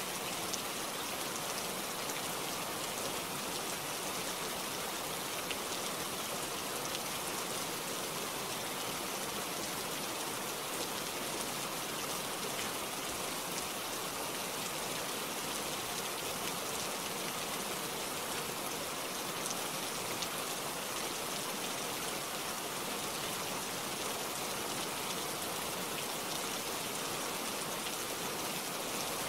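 Steady rain falling: an even hiss with faint tiny ticks of individual drops, unchanging throughout.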